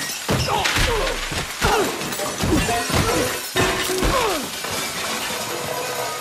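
Rapid run of crashes and shattering: crockery and glass breaking, metal pots and pans clattering and bodies thudding onto a hard floor, mixed with short gliding sounds. After about five seconds it thins to a steadier hiss.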